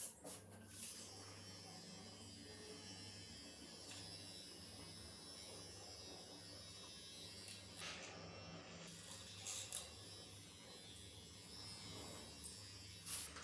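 A faint, steady low electric buzz, with a few light clicks from items being handled.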